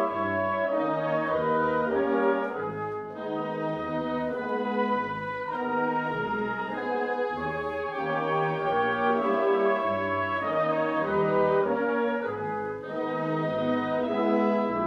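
Wind band of clarinets, saxophones and brass playing a funeral march: sustained chords over a bass line that moves to a new note about once a second.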